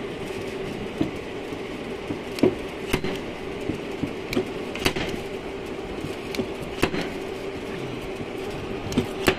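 Slide hammer on a body-shop dent puller knocking against its stop as it pulls out a dent in a steel quarter panel: sharp knocks at uneven intervals, the loudest near the end. A steady hum runs underneath.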